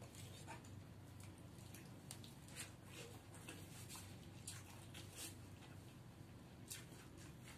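Faint mouth sounds of someone eating cooked drumstick (moringa) pods by hand: scattered soft smacks and clicks as the pulp is chewed and sucked from the fibrous pods, over a low steady room hum.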